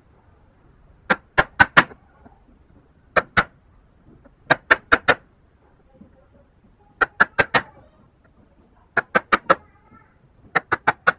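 Hammer striking a chisel held upright in a small wooden block, chopping out a recess for a hand-cut wood joint. The sharp knocks come in quick bursts of two to four, about five a second, with a short pause between bursts.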